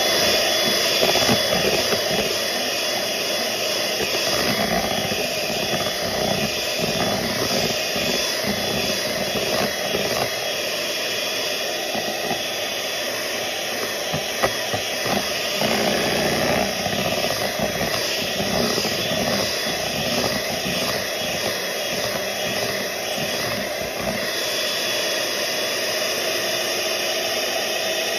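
Electric hand mixer running steadily, its beaters whisking a yogurt mixture in a bowl.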